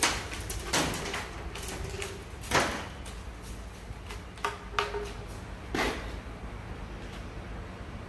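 A wooden stick knocking and scraping against the top of a rusty, long-neglected Chevrolet 283 small-block V8. There are about half a dozen sharp knocks at uneven intervals, the loudest about two and a half seconds in.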